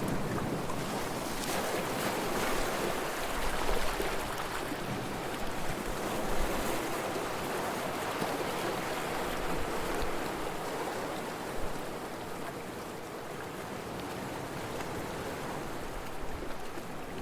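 Sea waves washing and surging in a continuous rushing wash of surf, easing slightly about two thirds of the way through.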